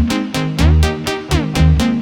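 Electronic dance music with a fast, steady beat, heavy bass pulses and synth notes.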